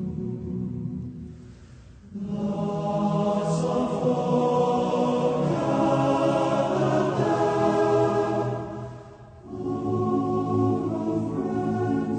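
Slow choral music: voices holding long, sustained chords in phrases, fading away about two seconds in and again near nine seconds, each time followed by a new swelling phrase.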